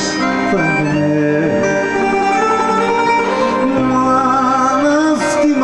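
A man singing a Greek song with vibrato, accompanied by a plucked bouzouki.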